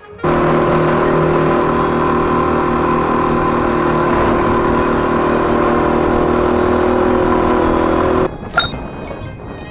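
Single-cylinder dual-sport motorcycle engine running at a steady speed, with the loud rush of riding. It cuts off suddenly about eight seconds in, giving way to a quieter sound and a single click.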